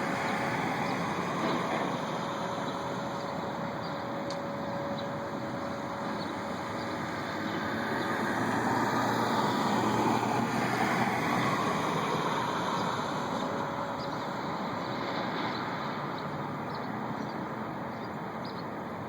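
Steady distant drone with a faint steady hum in it, growing a little louder about eight seconds in and easing off after twelve. It is an unexplained noise that seems to come from the sky and went on for hours.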